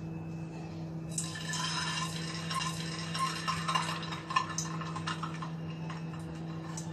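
A slit, peeled hard-boiled egg sizzling and crackling in hot oil in a kadai, starting about a second in as the egg goes into the oil. A steady low hum runs underneath.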